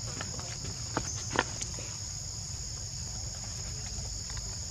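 Steady high-pitched drone of insects chirring in the vegetation, with a few short sharp clicks about a second in, the loudest near one and a half seconds.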